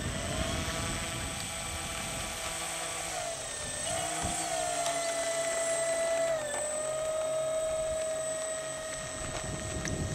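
Electric motor and propeller whine of an RC model airplane, rising in pitch as the throttle comes up at the start, then a steady high whine with two brief dips in pitch as the throttle is eased.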